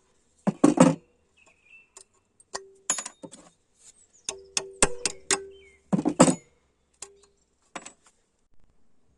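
Metal striking metal in irregular taps and clinks, several leaving a short ringing tone, the loudest strikes just under a second in and again around six seconds in.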